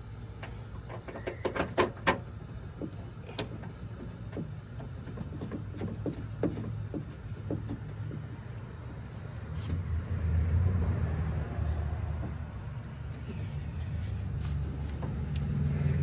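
Clicks and knocks of hands working inside a car door's inner cavity while refitting an exterior door handle, with a quick cluster of sharp clicks about two seconds in. A low rumble builds up about halfway through and carries on.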